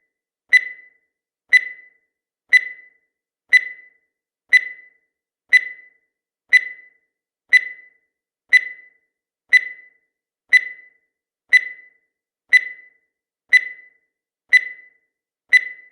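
Countdown timer sound effect: a short, sharp tick with a bright ring, repeating exactly once a second at an even level.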